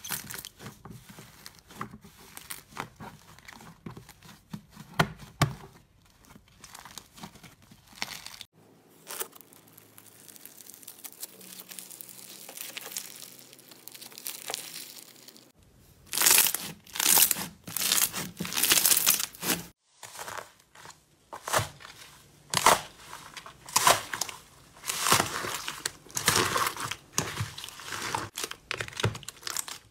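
Hands squeezing, kneading and stretching slime, giving sticky crackling and tearing sounds. The sounds come in clusters across a few short clips, with a run of loud crackling bursts in the second half.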